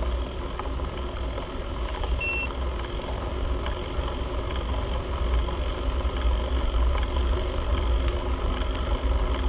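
Steady wind and road noise of a moving ride, heavy in the low rumble, with one short electronic beep about two seconds in.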